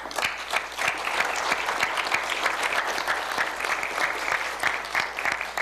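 Audience applauding: many hands clapping in a dense, steady patter that eases off near the end.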